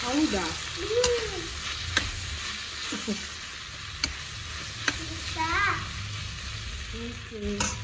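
Chopped vegetables sizzling in a steel wok as a steel ladle stirs them, the ladle clicking and scraping against the pan about once a second.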